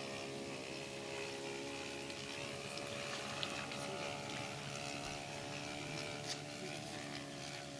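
Radio-controlled model airplane's motor and propeller droning steadily in flight, the pitch wavering slightly.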